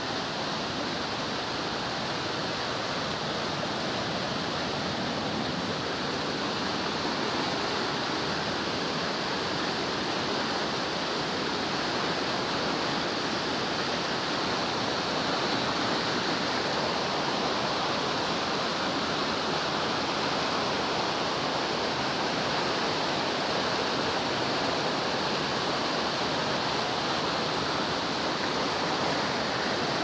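Waterfall and fast-flowing stream: water rushing and tumbling over rocks in a steady, unbroken rush, a little louder in the second half.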